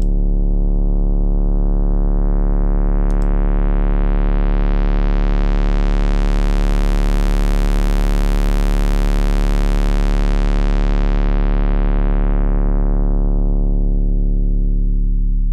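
Moog Model D analog synthesizer holding one deep bass note through the SVS PB-4000 subwoofer, its filter swept slowly open until the tone turns bright and buzzy, then closed again, so the note darkens back to a low rumble near the end.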